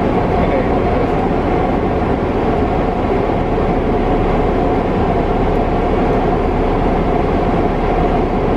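Steady noise inside a car cabin with the vehicle running: a constant rumble with a faint steady hum over it.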